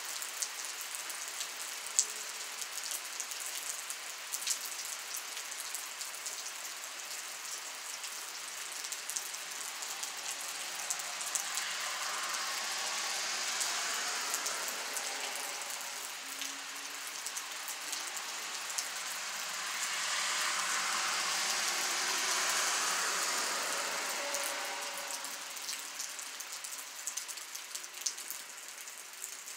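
Light rain falling on asphalt pavement and puddles: a steady hiss with scattered sharp drop ticks. Twice, about a third of the way in and again about two-thirds through, the hiss slowly swells louder and fades back.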